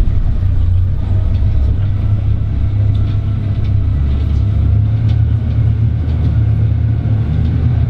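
Tour boat's engine running steadily while the boat is under way, a deep, even drone with little change.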